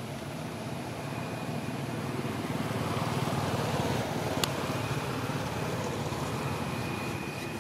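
Low rumble of a passing motor vehicle, swelling about three seconds in and then easing off, with one sharp click about four and a half seconds in.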